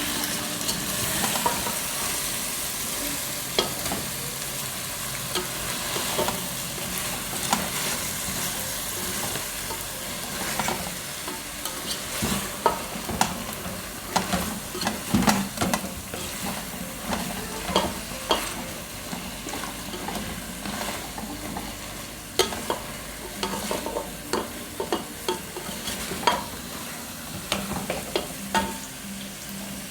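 Chicken sizzling in a pot as a spoon stirs it, knocking against the pot over and over, more often in the second half.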